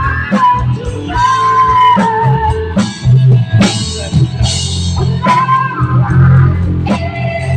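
Rock band playing: drum kit and guitar over a steady bass, with a wavering melody line on top.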